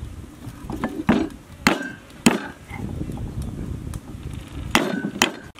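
Knife chopping on a thick wooden chopping block: about five sharp separate strokes at an uneven pace, the middle one the loudest.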